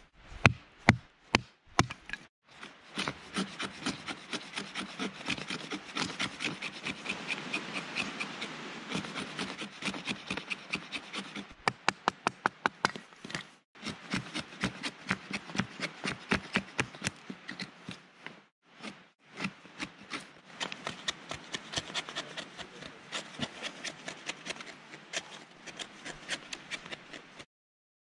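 Fixed-blade knife shaving a split stick, quick repeated scraping strokes of steel on wood that peel off feather-stick curls and kindling for a fire. A few sharper knocks come in the first two seconds, and the scraping breaks off briefly a few times.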